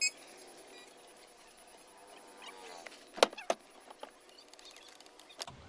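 Sharp clicks and knocks from hands working on a car's steering wheel with the airbag removed. The loudest two come in quick succession about three seconds in.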